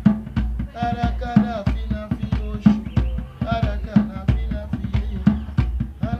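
Drums playing a fast, dense rhythm of several strokes a second, with a voice singing phrases over them: music for the orishas.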